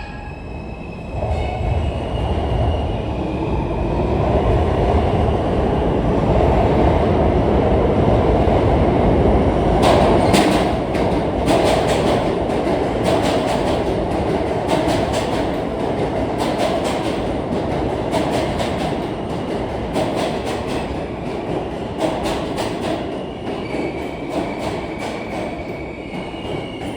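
R160 subway train running through the station. Its loud rumble peaks about a third of the way in, and then the wheels click steadily over the rail joints as it slowly fades. A thin high whine comes near the start and again near the end.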